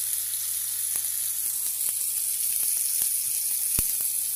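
Cherry tomatoes frying in a pan over a gas flame: a steady high sizzle with scattered small pops, and one sharper tap near the end.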